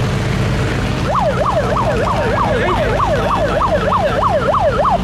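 A yelping siren, its pitch sweeping up and down about three times a second, starts about a second in and cuts off near the end. Under it a boat's engine runs steadily.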